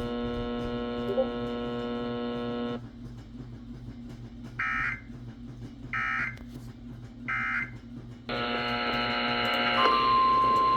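Emergency Alert System data tones on a weather radio broadcast. A steady electronic buzz cuts out, then three short squawking bursts of digital data sound in a row, the end-of-message signal that closes a warning. Near the end the buzz returns and a single steady attention tone begins, announcing the next alert.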